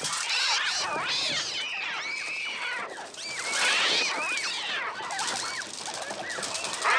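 A swarm of attacking seagulls shrieking: many shrill cries overlapping, each gliding up and down in pitch, with no let-up. In this film the bird cries were made electronically on a Mixtur-Trautonium.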